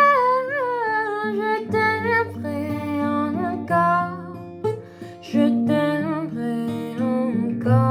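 Music: a voice singing a wordless melody in long held notes with vibrato, over acoustic guitar.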